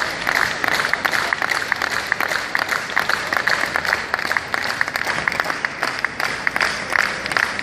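Audience applauding: many hands clapping in a dense, continuous patter that doesn't let up.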